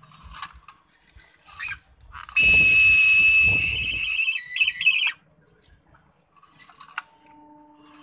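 Small geared DC motor of a homemade remote-control toy excavator running with a steady high-pitched whine for about three seconds, starting a little over two seconds in, as the boom is raised. Fainter short whirrs come before it.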